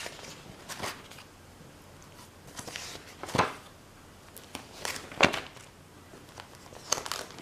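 Pages of a ring binder being turned and handled: a few short papery rustles and taps, the loudest about three and a half and five seconds in.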